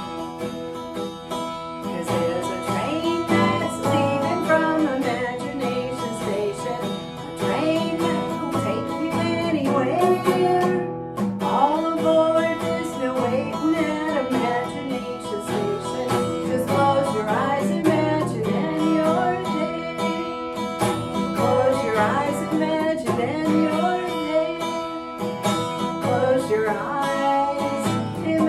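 A woman singing while strumming chords on a steel-string acoustic guitar.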